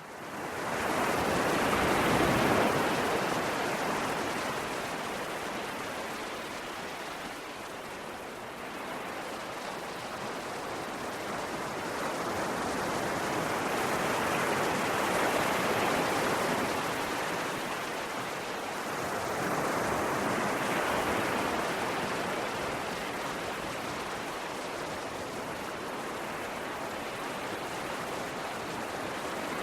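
Sea waves washing in on a shore, a continuous rush of surf that swells and ebbs in slow surges, loudest about three times.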